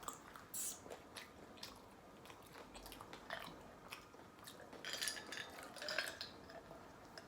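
Faint chewing and lip-smacking of someone eating pizza, with scattered small clicks.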